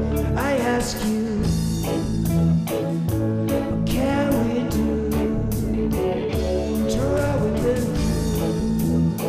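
Blues-rock band music: electric guitar with bent notes over bass and a steady drum beat.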